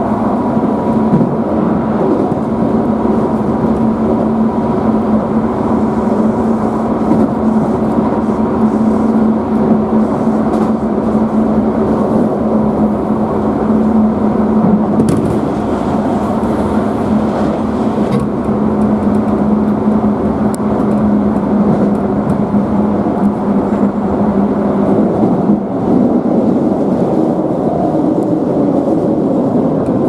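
Keisei commuter train heard from inside the car while running, a steady rumble with a constant motor hum. About halfway through, an oncoming train passes close alongside with a short rush of noise.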